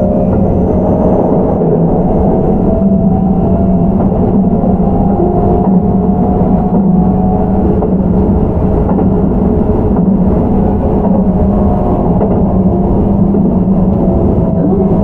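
Keihan 13000-series electric commuter train running between stations, heard from inside the passenger car. A steady rumble of wheels on rail carries a faint, slightly wavering hum from the Toyo IGBT VVVF traction drive.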